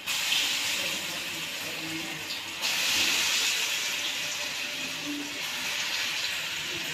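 Shewali-flower pakoras (gram-flour fritters) sizzling in hot oil in an iron kadai, a steady frying hiss that jumps louder as the batter goes in at the start and again a little under three seconds in.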